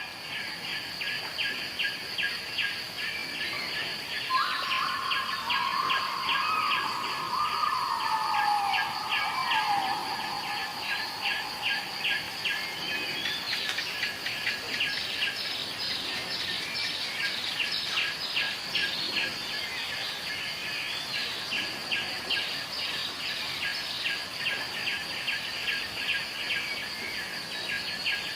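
Outdoor chorus of insects chirping in a fast, even pulse of several beats a second over a steady high-pitched buzz. A bird call falling in pitch sounds over it from about 4 to 10 seconds in.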